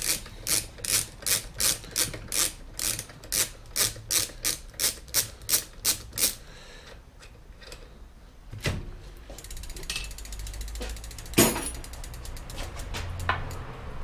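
Ratchet wrench clicking in a quick, even rhythm, about three clicks a second, as it unscrews the crank bolt on a bicycle's bottom bracket. The clicking stops about six seconds in, followed by two sharp knocks.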